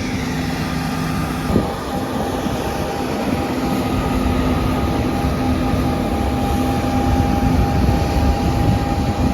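Heavy farm machinery engine running steadily, with a steady drone and a click about a second and a half in, after which a steady whine holds.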